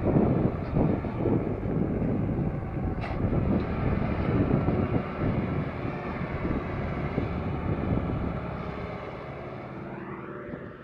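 Sonalika 750 tractor engine working hard under heavy load, pulling a loaded sand trailer up a slope, with wind buffeting the microphone. It fades off over the last couple of seconds.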